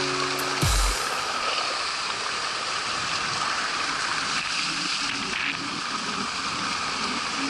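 Steady rushing water noise of a Nobile Flying Carpet kiteboard planing across flat lagoon water, heard through an action camera. A music note cuts off just under a second in.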